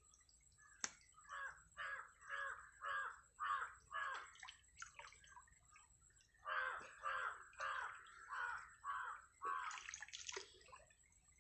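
A crow cawing in two quick runs of about seven or eight caws each, roughly two caws a second, with a short pause between the runs. There is a faint trickle of water beneath and a single sharp click about a second in.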